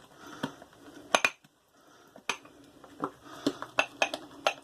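Boar-bristle shaving brush whipping thick, wet lather in a shaving mug, with irregular clinks and knocks of the brush against the mug's sides. There is a short pause about a second and a half in.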